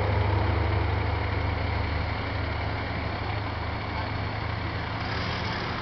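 Fire truck's diesel engine idling with a steady low hum, gradually getting quieter.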